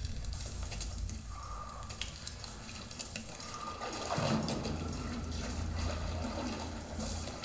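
Film sound effects played through a home theater system with subwoofers and recorded in the room: a steady low rumble under scattered water-like drips and clicks, with one sharp click about three seconds in.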